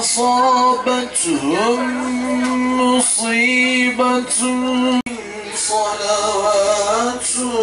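A man's solo voice singing unaccompanied into a handheld microphone, holding long notes with slow ornamented turns. A sudden cut about five seconds in is followed by a more moving melodic line.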